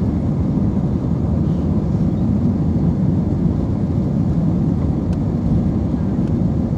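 Airbus A320-232 at takeoff thrust, heard from inside the passenger cabin: a steady, heavy low rumble of its IAE V2500 engines and rushing airflow.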